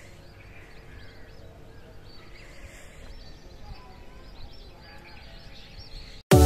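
Faint outdoor ambience: a low steady background hum with small birds chirping over and over. Just before the end it cuts off abruptly and keyboard music starts.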